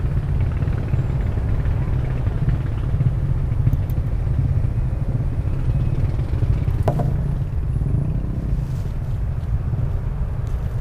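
Wind buffeting the camera microphone: a steady low rumble, with one sharp knock about seven seconds in.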